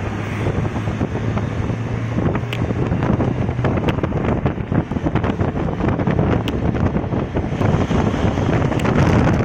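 Wind buffeting the microphone from inside a moving vehicle, over the steady hum of its engine and road traffic. Traffic noise grows louder near the end as a bus runs close alongside.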